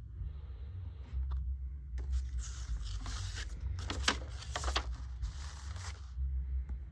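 Paper and packaging being handled: rustling and crinkling that swells in the middle, with a few sharp crackles, over a steady low hum.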